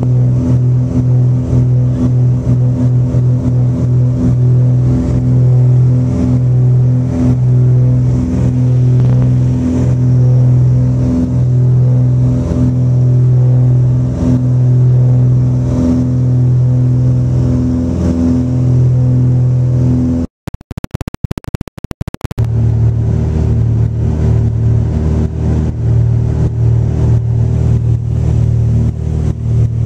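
Cabin noise of a Britten-Norman Trislander in flight: its three Lycoming six-cylinder piston engines and propellers give a loud, steady drone with a slow beat in the low hum. About twenty seconds in the sound breaks off for a moment, crackles for a second or two, then the drone comes back.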